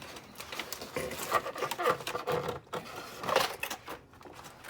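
Hands working at plastic toy packaging: irregular clicks, rustles and scrapes of the plastic tray and blister.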